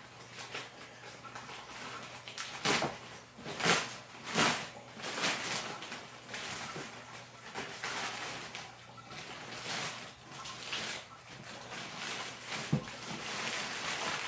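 Thin plastic bag rustling and crinkling in irregular bursts as it is pulled off a cardboard box, with one short knock near the end.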